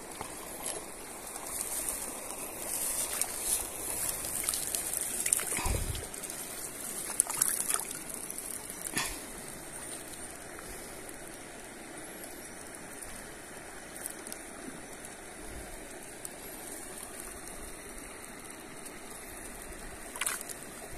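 Stream water running and trickling, with a busier, splashier stretch from about two to six seconds in and a few short knocks and splashes scattered through it.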